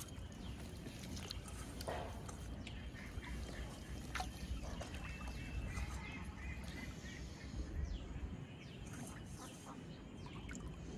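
Outdoor ambience: a steady low rumble that eases near the end, scattered small clicks and knocks, and a short run of faint bird chirps about five seconds in.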